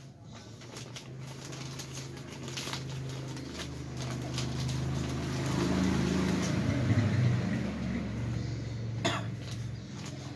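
A low, steady motor hum swells to its loudest about midway and then eases off. Light clicks and plastic rustling from hands working over a plastic bag of plants run through it, with one sharp click near the end.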